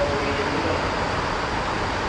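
Steady outdoor city din: an even rumble and hiss with no single event standing out.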